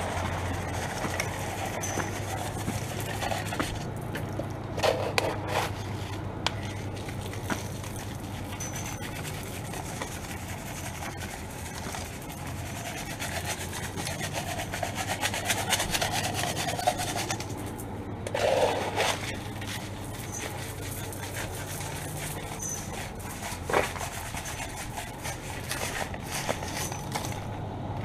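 Rock salt being spread by hand on a concrete walkway: grains scattering and crunching on the pavement under footsteps, with a few louder crunches.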